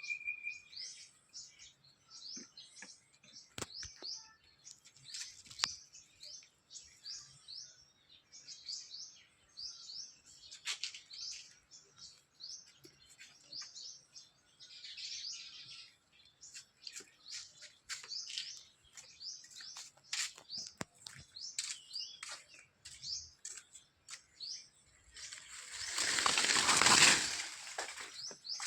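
Small birds chirping, short high chirps about twice a second throughout. Near the end a loud rushing noise swells and fades over about three seconds.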